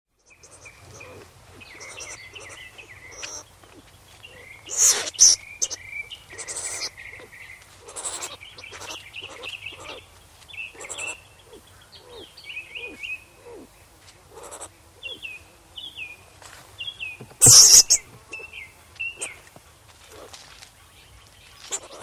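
A skunk chirping and twittering: a string of short, high, falling squeaks with scattered clicks, broken by two louder harsh bursts about five seconds in and again about seventeen seconds in.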